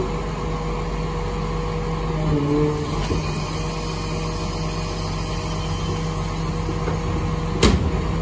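Rear-loader garbage truck running steadily while its hydraulic packer sweeps the hopper, with a brief change of pitch a couple of seconds in. A loud metallic clank near the end as the emptied bulk bin comes off the lifter.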